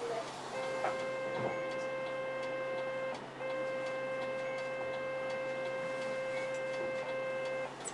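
Inside a moving city bus: a steady high tone is held for about two and a half seconds, breaks off briefly, then holds for about four seconds more, over the constant low hum of the cabin.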